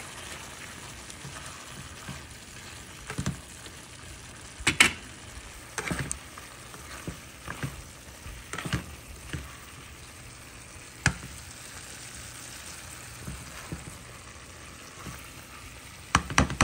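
Chicken livers, sweet peppers and green onions frying in a pan with a steady sizzle, while a utensil stirs them and knocks sharply against the pan a handful of times.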